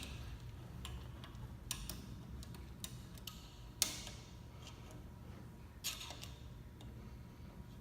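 Scattered sharp metal clicks and ticks as a tool pries the piston snap ring out of a 4L80E transmission center support held in a press, the loudest just before four seconds in, over a steady low hum.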